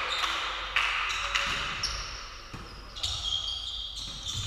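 Volleyball being struck and bouncing on a sports-hall court, sharp reverberant thumps about every half second, followed by high shoe squeaks on the floor near the end.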